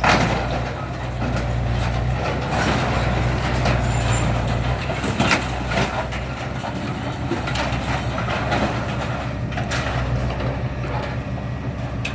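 Engine of a heavy scrapping machine running steadily under load, with occasional sharp clanks and crunches of metal as it works the scrap combine.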